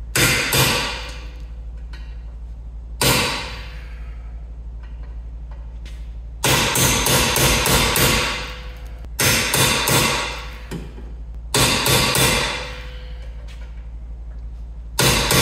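Hammer blows driving a T55 Torx socket onto a rounded-off brake mount bolt: sharp metal-on-metal strikes in bursts, with a quick run of about seven near the middle, each ringing briefly. The socket keeps bouncing out because it is too loose a fit on the rounded head.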